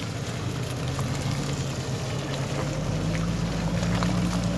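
Mitsubishi SUV's engine running under load as it drives through slick, waterlogged clay mud, with the wet spatter of tyres in the mud. The engine note rises about halfway through as the revs go up.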